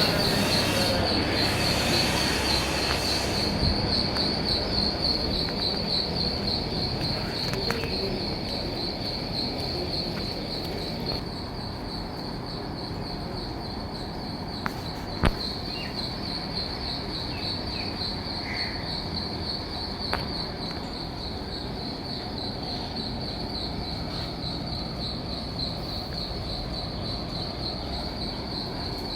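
Insects chirring steadily in a high, fast-pulsing trill over a low rumbling background, with a few sharp clicks, the loudest about halfway through.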